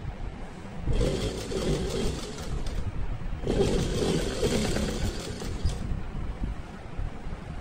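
Sewing machine stitching fabric in two runs, the first from about a second in to near the three-second mark, the second from about three and a half seconds to near six seconds, with a low rumble between them.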